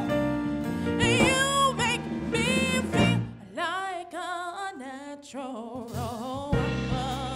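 A female soul singer sings a gospel-style ballad with heavy vibrato and melismatic runs, backed by a live band on keyboard and drums. About halfway through the band drops out and she sings alone for a few seconds before the band comes back in.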